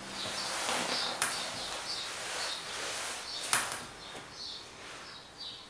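Small birds chirping, many short high chirps in quick succession, with two sharp clicks, one about a second in and one past the middle.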